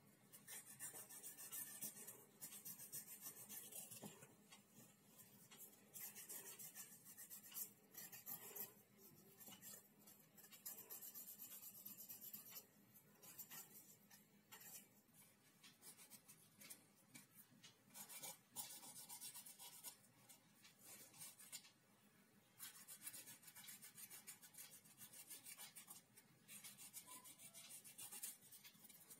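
Faint rasping of a hand nail file across a dog's claws, in bouts of quick back-and-forth strokes a few seconds long with short pauses between.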